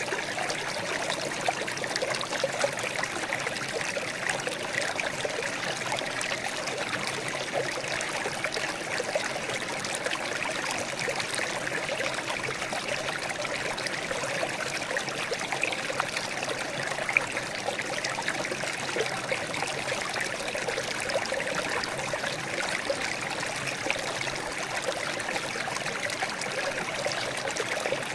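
Water trickling and burbling steadily, a continuous splashy babble with many tiny irregular drips and splashes.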